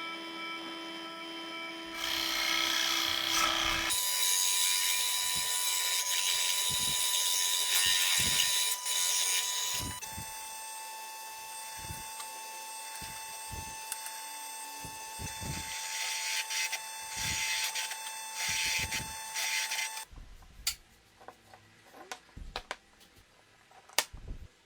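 Power tools running with a steady whine, the pitch and loudness jumping to a different tool every few seconds. The last few seconds give way to scattered light knocks and clicks.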